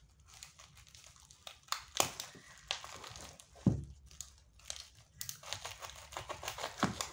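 Plastic parcel wrapping bound with packing tape being cut and pulled open with a utility knife: irregular crinkling and crackling, with a few louder crackles.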